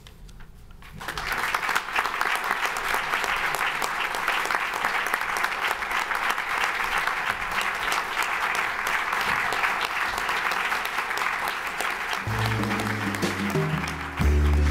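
Audience applauding for about eleven seconds. Near the end, instrumental music with a plucked bass line comes in.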